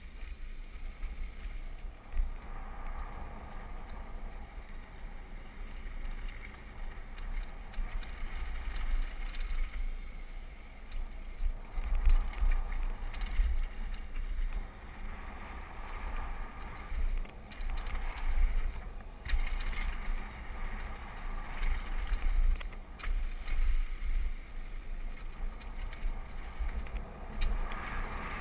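Downhill mountain bike running fast over a dirt and gravel trail: rolling tyre noise and rattling over the bumps, under a constant, fluctuating rumble of wind on the camera microphone, with a few sharp knocks as the bike hits rough ground.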